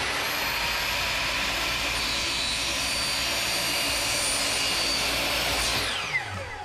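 Electric chop saw (miter saw) motor running at full speed with a high whine while cutting a pipe in half. About six seconds in it is switched off, and the whine falls steeply as the blade spins down.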